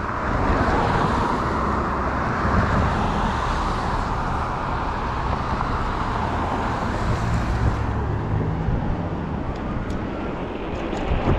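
Steady rushing road noise from riding a fat-tire e-bike: tyre hum and air rushing past the microphone, with a few faint ticks near the end.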